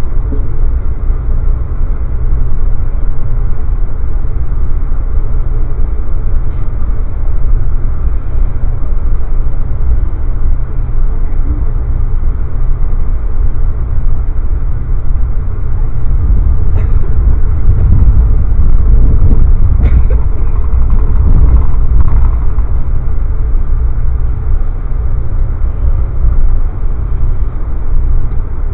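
Steady low rumble of an Amtrak passenger coach running at speed, heard from inside the car by the window. About 17 seconds in it grows louder for several seconds, with a few sharp clicks, then settles back.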